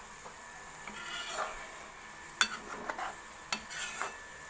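A steel ladle stirring thin masala gravy in a metal kadhai, scraping along the pan. There are several light clinks of the ladle against the pan in the second half.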